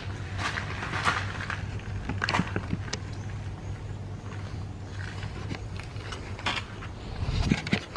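Camera handling noise as a person wades up and picks it up: scattered clicks, knocks and rustles with footsteps in shallow water, heavier near the end, over a steady low hum.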